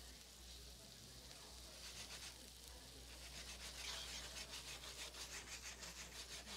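Rabbit roulade and shallots browning in butter in a stainless steel frying pan, sizzling faintly, with a soft rhythmic rasping of about six strokes a second from about two seconds in.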